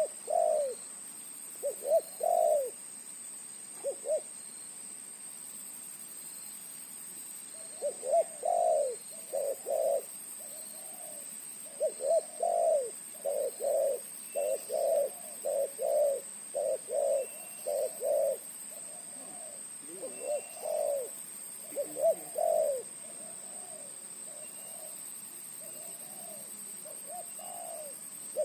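Spotted dove (terkukur) cooing in repeated phrases of low notes, with pauses between phrases; a big-voiced decoy bird, cooing as it does when facing a rival. A faint steady high-pitched whine runs underneath.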